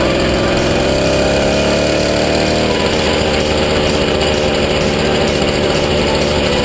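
80cc two-stroke motorized-bicycle kit engine running under way, its pitch rising as it revs up for the first few seconds, then settling lower and holding steady.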